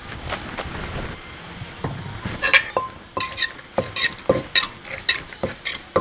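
A wooden pestle pounding and tossing papaya salad in a clay mortar, with a metal spoon clinking against it. A couple of soft knocks come first, then about two sharp strikes a second from a couple of seconds in, several ringing briefly.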